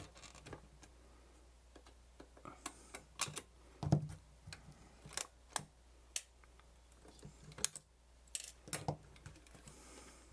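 Irregular light clicks and taps of tools and small plastic parts being handled as a Sharp VL-E620 Video8 camcorder is taken apart, with louder knocks about four seconds in and again near the end.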